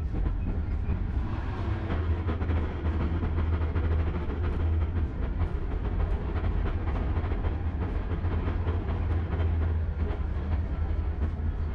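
Tram running along street track: a steady low rumble with frequent short clicks of the wheels over the rails, and a faint whine that glides up and down in pitch.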